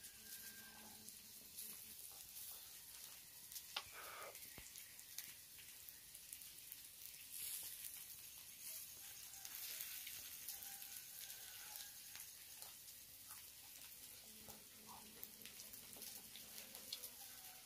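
Faint sizzling and crackling from a small wood cooking fire, an even hiss with scattered small pops.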